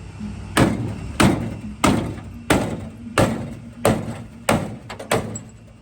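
Big hammer beating on the rusted steel bodywork of a 1972 Chevy Nova: eight heavy blows, evenly paced at about one and a half a second.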